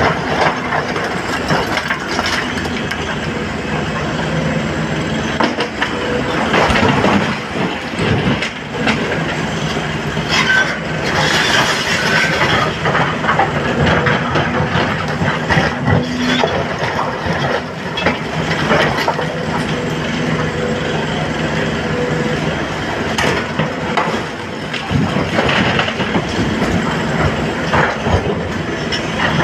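SANY hydraulic excavator's diesel engine running steadily under load while its bucket digs into and lifts broken stone, with rock knocking and clattering against the steel bucket and into the dump truck's body.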